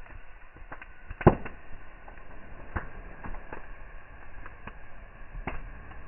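Burning firewood crackling, with scattered sharp pops at irregular intervals; the loudest pop comes just over a second in.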